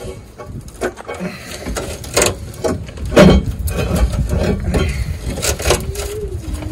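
Long-handled socket wrench being heaved on a seized, rusted tow-hitch bolt: a string of metallic clicks and knocks over a low rumble, the loudest knock about three seconds in.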